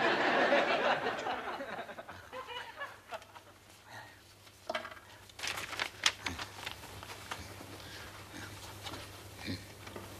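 Audience laughter that swells right after a punchline and fades away over the first two or three seconds. Later comes quieter crisp rustling of paper sheets being handled, busiest around the middle.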